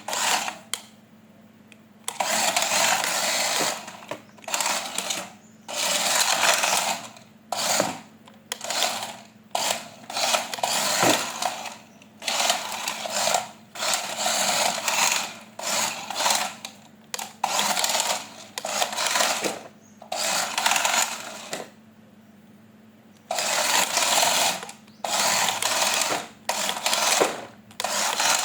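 Small electric motor and gears of a remote-control toy whirring in repeated on-off bursts, each lasting from under a second to about two seconds.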